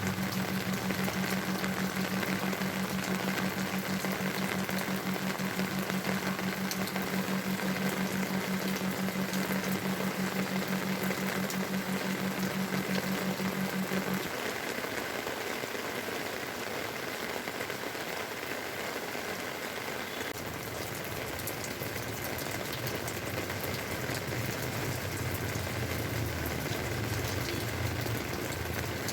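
Heavy monsoon rain falling steadily. A low steady hum runs under it and stops about halfway through.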